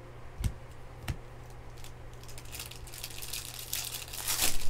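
Trading-card pack wrapper crinkling and tearing open, the rustle building and loudest near the end. Before it, two short knocks.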